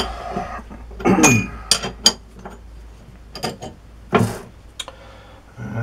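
Several separate sharp metallic clinks and knocks of steel parts and tools being handled at a metal lathe.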